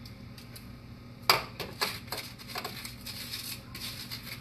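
A knife cutting through a crispy fried fruit lumpia on a cutting board: one sharp crunch about a second in, a few smaller crunches after it, then a crackly rustle of the fried wrapper.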